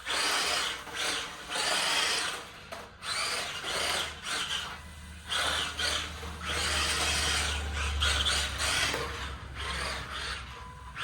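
Small electric motor of a toy RC drift car whirring in a string of short throttle bursts of about a second each, with brief pauses between them.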